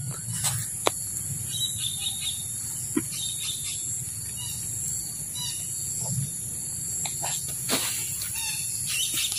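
Tropical forest ambience: a steady high insect drone with scattered short bird chirps, and a couple of brief knocks.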